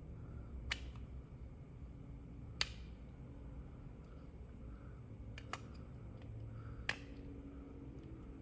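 Four sharp single clicks a couple of seconds apart, over a low steady hum.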